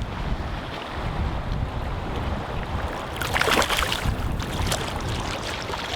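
Wind buffeting the microphone over the steady rush of river water, with a brief louder burst of noise about three seconds in.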